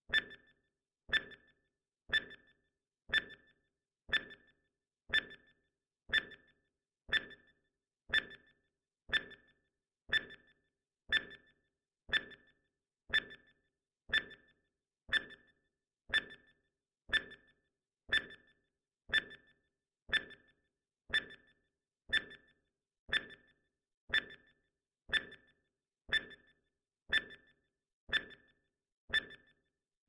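Countdown timer sound effect: a short electronic beep with a clear high pitch and a quick fade, once every second.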